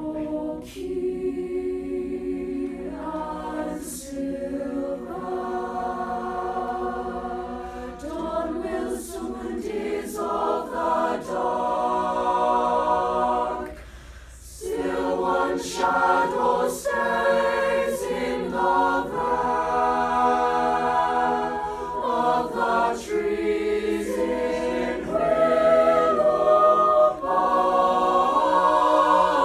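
Mixed high-school chamber choir singing a cappella in several-part harmony, holding chords that change every second or so. There is a short break about halfway, and the singing swells to its loudest near the end.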